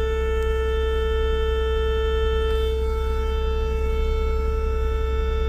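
Loud, steady whining buzz from the dashboard of a 2017 Ford Explorer, one held siren-like tone with overtones. It comes from the HVAC cabin air temperature sensor, whose small built-in fan is most likely making the noise.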